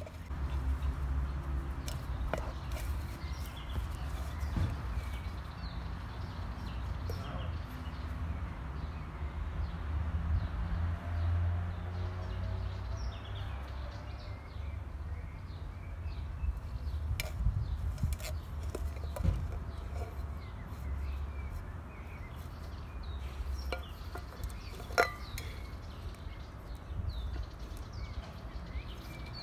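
Labrador puppy chewing and pawing at a metal tin can: scattered clicks and knocks of teeth and claws on the tin, with one sharper metallic clink near the end. Birds chirp faintly over a low steady rumble.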